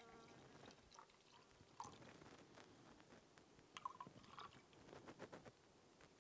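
Near silence with faint handling sounds: a few soft clicks and light rustles as small containers are handled.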